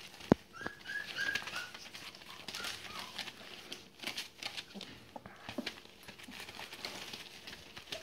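Border collie puppies scrambling over newspaper: rustling paper and small pattering clicks of paws. There is a sharp click about a third of a second in, and a few short high squeaks about a second in.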